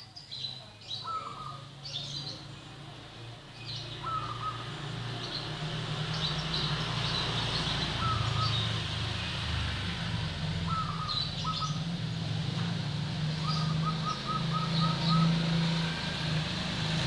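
Zebra dove (perkutut) cooing in short phrases, one a quick run of notes near the end, with other small birds chirping higher. A low, steady engine drone comes in about six seconds in and stays.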